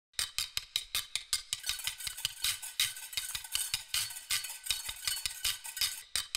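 Background music with a quick, clicking percussion beat, about six light clicks a second.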